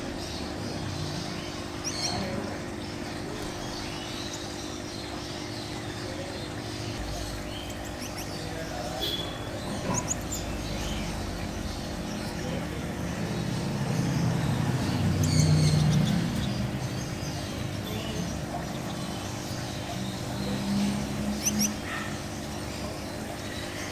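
Gouldian finches giving scattered short, high chirps over a steady low hum. A low rumble swells and fades about two-thirds of the way through.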